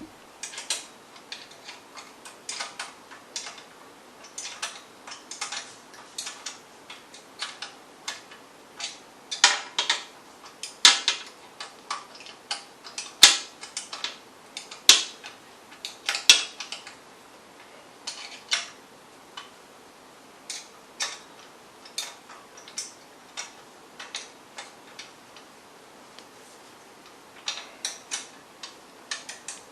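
Ratchet wrench clicking in short runs as the bolts holding a new pressure washer pump are tightened down, with a few louder metal knocks of the tool about halfway through.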